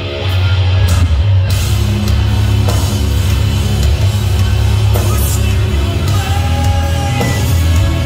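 Post-hardcore band playing live at high volume: distorted electric guitars, heavy bass and drums. The full band comes back in just after a brief drop, with cymbals filling in about a second and a half in.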